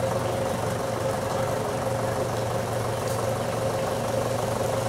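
Engine idling steadily, with an unchanging low hum and a steady mid-pitched tone.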